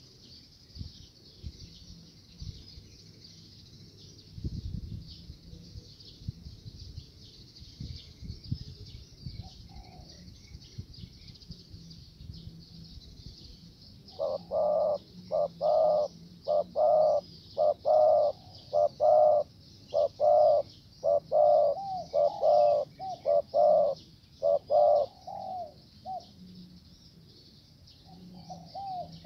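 Spotted dove (tekukur) cooing: a long run of short, loud coos at about two a second, starting about halfway through and stopping about three seconds before the end, then a few fainter coos at the very end. A steady high-pitched drone runs underneath.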